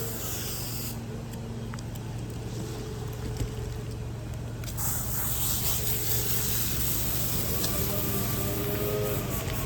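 Water hissing from a spray hose over a steady low engine hum; the spray drops away after about a second and starts again about five seconds in.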